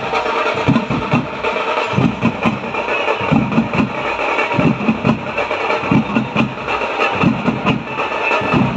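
Loud live festival drumming: deep drum strokes come several times a second in an uneven rhythm over a steady, dense din.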